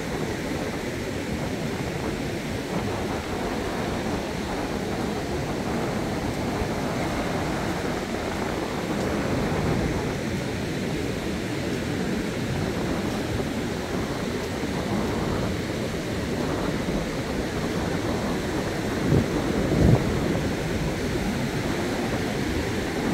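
Rough sea surf breaking on the beach, a steady rushing noise, with wind on the microphone. Two brief low thumps come near the end.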